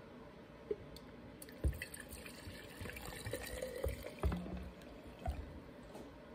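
Two-stroke fuel mix being poured from a string trimmer's plastic fuel tank into a glass jar: a trickling pour that rises in pitch as the jar fills. A few dull knocks come from handling the trimmer and jar.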